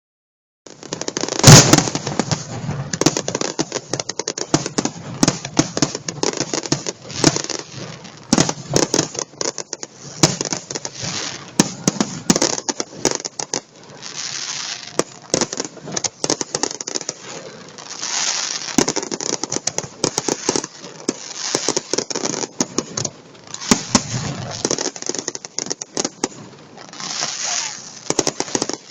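Fireworks going off: a dense, unbroken run of sharp bangs and crackles, the loudest bang about a second and a half in.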